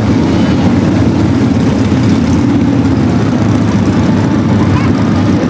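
Several Harley-Davidson police motorcycles with V-twin engines running at low speed, a steady, even engine sound as the bikes ride slowly in formation.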